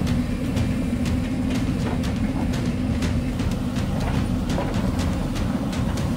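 Hyundai crawler excavator's diesel engine running steadily under load, with irregular knocks and clatter throughout.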